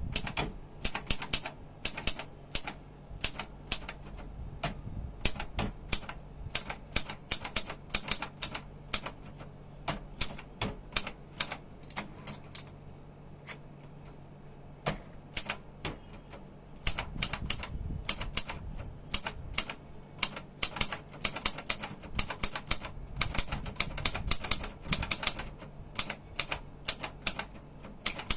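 ALL 3000 typewriter being typed on: its keys strike in quick, irregular runs of clacks, thinning out to a few isolated strikes for several seconds midway before the fast typing resumes. A steady low hum runs underneath.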